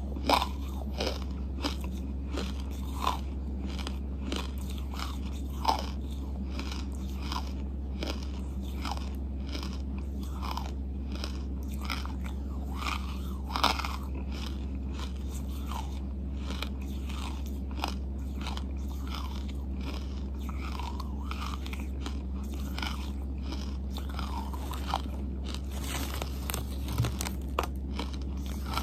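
Close-miked chewing of a mouthful of edible charcoal paste: irregular wet clicks and smacks of the mouth, several every second, over a steady low hum.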